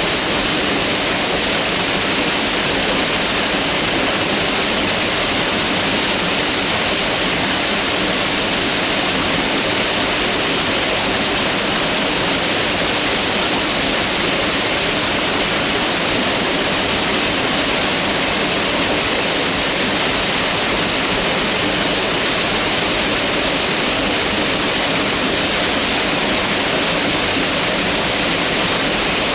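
Mountain river rushing steadily over rocks, an even full water roar with no breaks.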